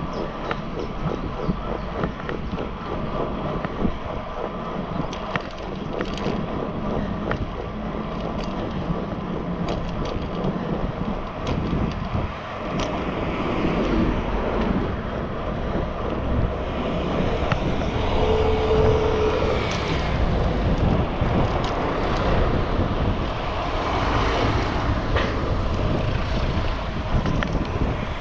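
Wind buffeting the microphone of a camera on a moving road bike, over the rolling noise of the ride on asphalt, with small clicks and a short steady tone about two-thirds of the way in.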